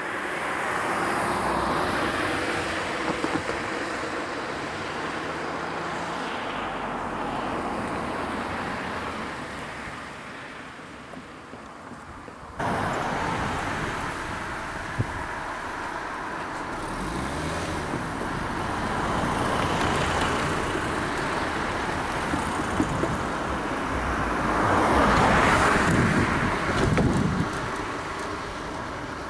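Road traffic: cars driving past one after another, each one swelling and fading, with the loudest pass near the end and a few short clicks along the way.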